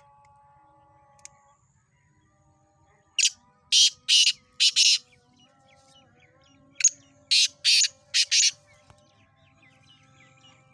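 Black francolin calling twice: two harsh, grating phrases of about five notes each, a couple of seconds apart.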